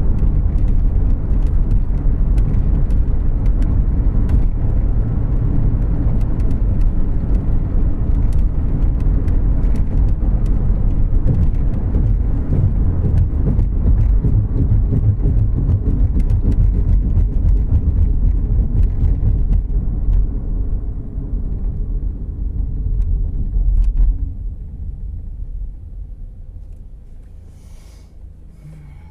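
Cabin noise inside a moving 2014 Volkswagen Jetta Clásico: a steady low rumble of engine and tyres with scattered small clicks and rattles, dying away from about twenty seconds in as the car slows and becomes much quieter near the end.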